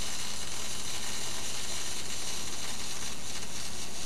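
MIG (gas metal arc) welding arc running on aluminum as the gun travels along an overhead T-joint fillet weld: a steady, high hiss with no breaks.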